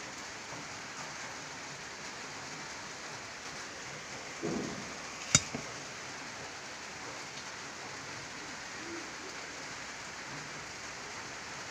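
Steady hiss of background noise, with a brief knock and a sharp click about five seconds in.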